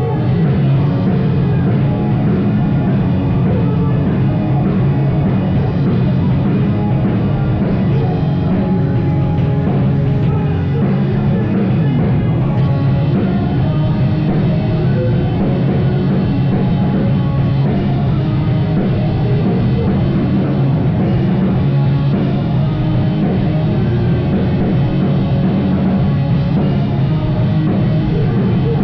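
Loud live rock band playing an instrumental passage with drum kit, bass and distorted guitar.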